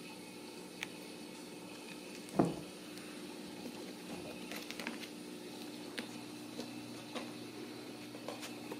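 Ragdoll kittens playing against a foil duct tube and a rug: scattered light ticks, scratches and crinkles over a steady low hum, with one brief, much louder sound about two and a half seconds in.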